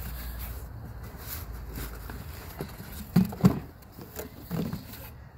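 Cardboard shipping box being opened and a shoe box pulled out of it: cardboard rubbing and knocking, with two loud thumps close together a little past three seconds in and a few softer knocks after.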